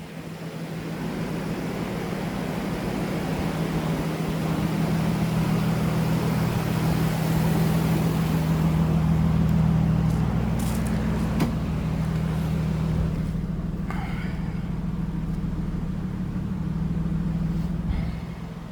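Freshly swapped non-VVTi 2JZ-GE inline-six engine in a Lexus GS300 running steadily, its hum swelling over the first few seconds and easing slightly later on. A single sharp click sounds partway through.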